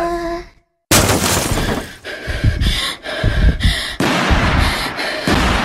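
Gunfire sound effect in a song's soundtrack: rapid bursts of automatic fire in several volleys, starting about a second in and fading away near the end.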